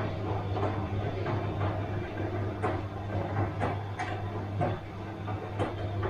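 Bosch washing machine running mid-cycle: a steady low hum from the drum and motor, with irregular soft knocks and swishes about once or twice a second as the load tumbles.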